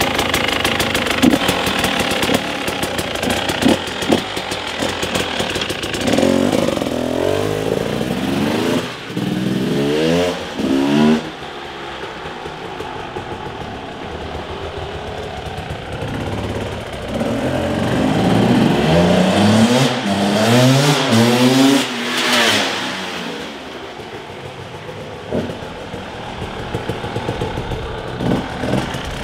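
Two-stroke 300 cc enduro motorcycle with an FMF exhaust ridden hard twice under load, about six and about eighteen seconds in. Each time the revs climb again and again through the gears. Between the runs the engine runs at lower revs.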